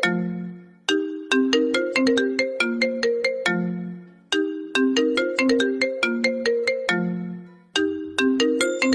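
A version of the iPhone ringtone playing as a looping tune: a short phrase of quick struck notes, like a marimba, that ends on a lower held note and repeats about every three and a half seconds.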